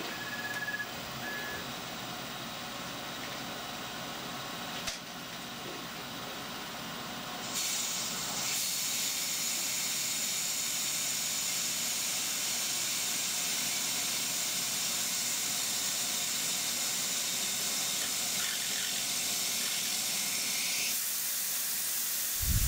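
Milling machine spindle turning a 2/0 HSS taper pin reamer into 4140 steel. A steady hiss from the spray nozzle at the cut starts about seven seconds in and cuts off near the end, followed by a short low thump.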